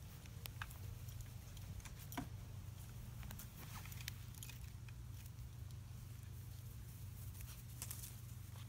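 Black Labrador puppies playing on grass: faint scattered rustles and small clicks from paws and a plush toy being mouthed and tugged, over a steady low hum.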